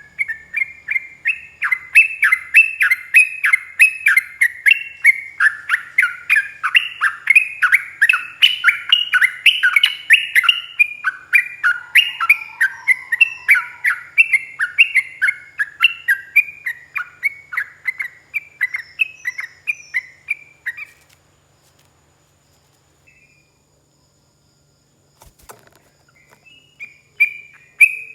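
Yellow-vented bulbul (trucuk) singing a long 'ropel' run: a rapid string of short, sharp chirping notes, about three a second. It breaks off about three quarters of the way through and starts again near the end.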